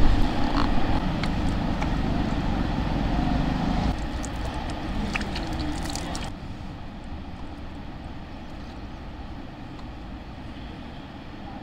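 Wind buffeting the microphone, a low rumble that is strongest in the first few seconds and then drops away.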